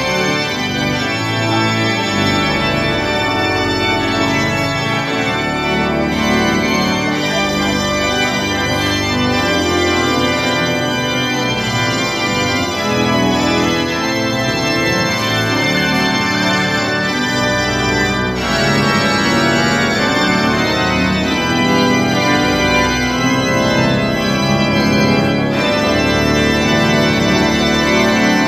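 Church pipe organ playing a piece in full chords, sustained and unbroken, over a bass line that moves every second or so.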